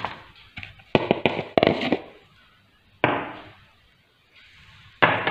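Glass tumblers being picked up and set down on a tabletop. A quick run of clinks and knocks comes about a second in, then two single heavier knocks, one about three seconds in and one near the end.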